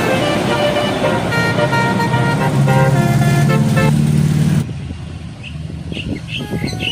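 Bus telolet horn, a multi-trumpet air horn, playing a quick melody of short stepped notes. A low steady tone joins underneath about two and a half seconds in. It cuts off abruptly about four and a half seconds in, leaving a quieter stretch with short high chirping notes.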